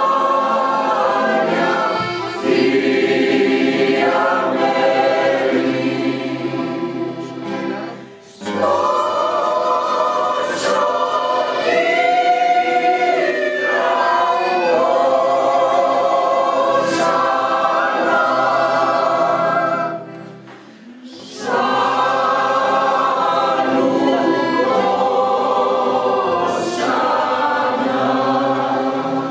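Amateur mixed choir of men's and women's voices singing together in long phrases, with two brief breaks between phrases, about eight seconds in and about twenty-one seconds in.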